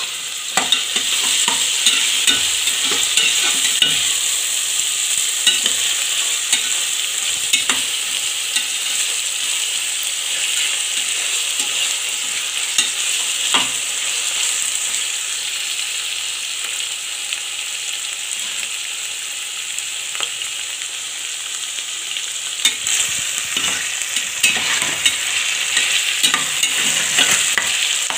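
Chopped beans, carrots and potato sizzling in hot oil in an aluminium pressure cooker while being stirred with a spatula. The steady frying hiss is broken by scattered sharp scrapes and knocks of the spatula against the pot.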